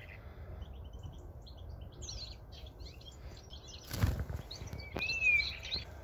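A common chaffinch is let go from the hand and flies off, with a brief rustle and flutter of wings about four seconds in. Small songbirds chirp faintly throughout, with one clear rising-then-falling call about five seconds in.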